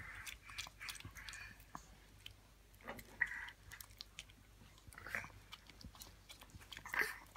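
Small dog licking and smacking at a soft cream-filled sponge snack held out by hand: quiet wet licking clicks, with louder smacks about three, five and seven seconds in.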